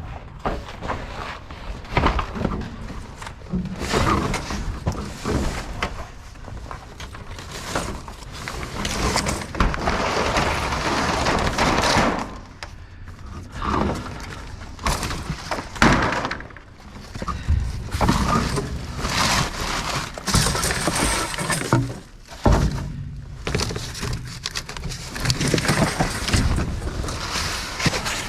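Garage door panels and debris being dragged and dropped in a metal dumpster: repeated bangs, thuds and scraping, with sharp knocks scattered throughout.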